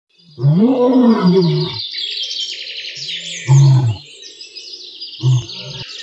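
A lion roaring: one long call that rises and then falls in pitch, followed by two shorter grunts, one about three and a half seconds in and one about five seconds in. Small birds chirp steadily throughout.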